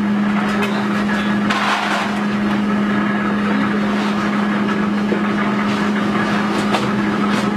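Nougat cutting machine running with a steady hum, with a few light knocks as the roller cutter works over the nougat slab.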